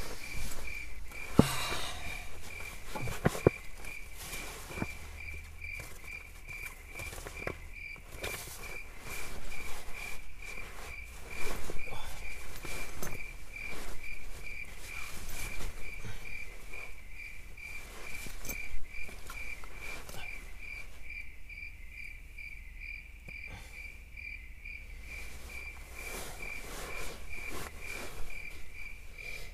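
A cricket chirping steadily in an even, rapid rhythm at a high pitch, over scattered rustles and knocks.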